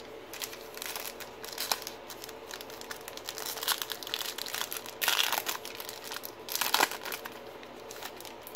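Foil wrapper of a baseball card pack crinkling and tearing as it is ripped open by hand, in irregular bursts with the loudest rips about five and seven seconds in.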